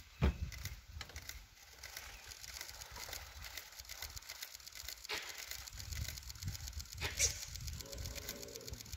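A sharp knock just after the start, then light rapid clicking over a low rumble.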